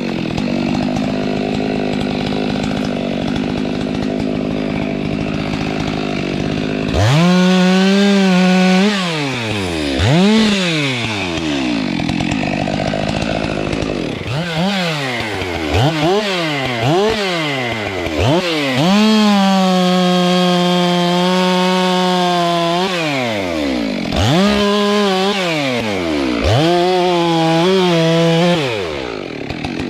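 Stihl MS 462 two-stroke chainsaw running steadily for the first several seconds, then revved again and again. Its pitch sweeps up and down in quick throttle blips, and it is held at full throttle for a couple of seconds at a time, three times.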